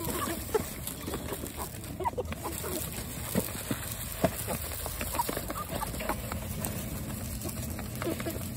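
Cornish cross and Freedom Ranger broiler chickens clucking softly as they feed at a split-PVC-pipe trough, with many quick sharp taps of pecking and feed landing in the plastic trough.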